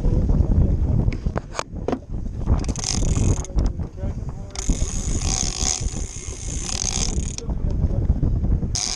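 Fishing reel being cranked to bring in a hooked fish, giving a mechanical ratcheting whir in two stretches, with a few sharp clicks near the start. A heavy low rumble of wind buffeting the microphone runs underneath.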